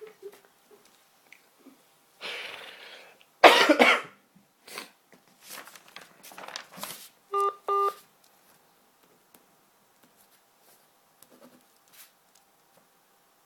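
A cough heard over a telephone line, followed a few seconds later by two short telephone keypad beeps.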